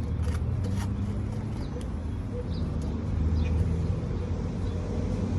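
Busy street ambience: a steady low rumble of road traffic, with a few short clicks in the first second and faint high bird chirps now and then.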